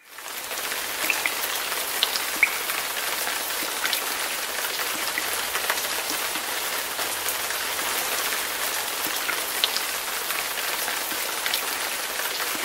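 Steady rain: an even hiss scattered with small sharp drip ticks, fading in quickly at the start.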